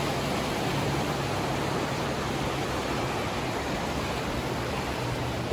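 Steady rush of wind noise over a helmet-mounted microphone while riding a motorcycle, with a faint steady low hum beneath it.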